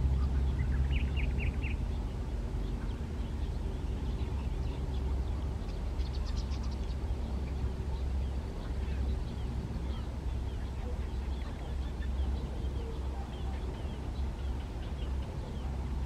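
Outdoor ambience of a steady low rumble with small birds chirping: a quick run of four high notes about a second in, a brief higher trill around six seconds, and scattered faint chirps after that.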